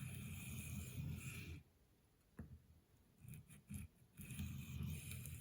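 Steel knife blade drawn along a sharpening stone in long strokes, one in the first second and a half and another near the end, with a few short scrapes and a light tick between: finishing passes to take off the burr.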